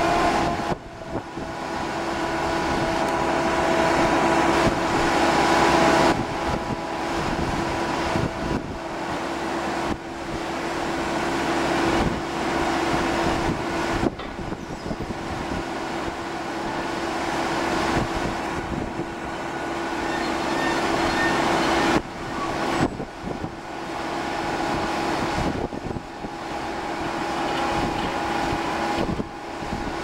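Cargo-handling machinery running steadily: the hum of a ship's crane and clamshell grab working a hold, with a constant tone underneath, its loudness repeatedly swelling and then dropping off abruptly.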